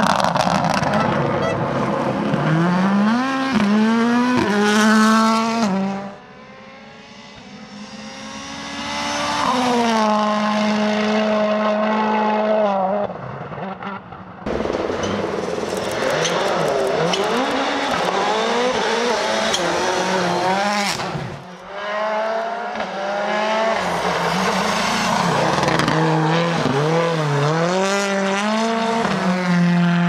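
World Rally Cars, including a Ford Fiesta WRC and a Citroën C3 WRC, passing one after another at full attack on a tarmac stage. Each car's turbocharged 1.6-litre four-cylinder engine revs hard, its pitch climbing and dropping sharply through quick gear changes. Each pass breaks off abruptly where the next car's begins.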